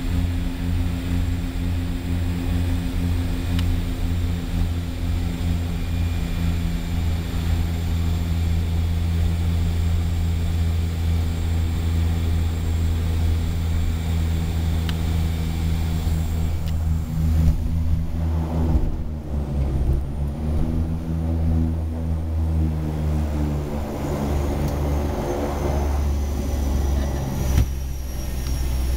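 Floatplane propeller engines droning steadily, heard from inside the cockpit on the approach over water. About two-thirds of the way in, the engine note shifts and dips and a rush of water noise joins as the floats touch down. The engines then run on at a steady low drone on the water.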